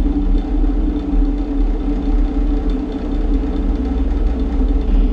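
A loud, steady low mechanical drone with a constant hum, like an idling engine.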